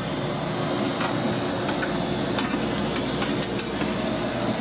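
Steady machinery drone with a constant low hum. From about halfway through comes a run of sharp clicks and light metallic taps, like tools or dryer panel parts being handled.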